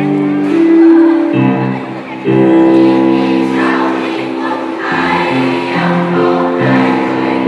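Student choir singing in harmony, holding long notes. The singing dips briefly about two seconds in and comes back louder.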